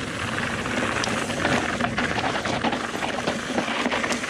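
Mountain bike rolling over a rough, rocky trail: steady tyre noise with a constant clatter of small knocks and rattles from stones and the bike.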